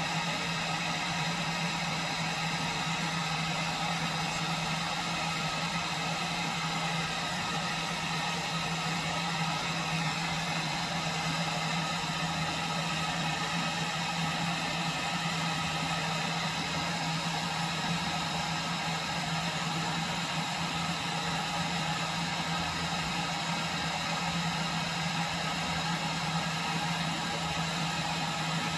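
Propane burner on a 1 lb cylinder burning steadily under a pot of water: an even, unbroken roar with a constant low hum, while the water heats but is not yet boiling.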